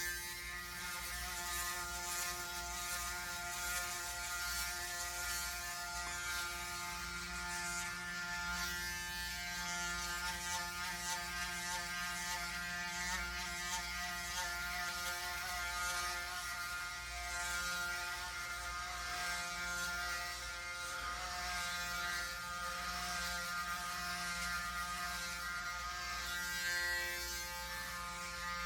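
Braun Series 9 Pro electric foil shaver running with a steady buzz at a fixed pitch while it is worked over the scalp in a head shave.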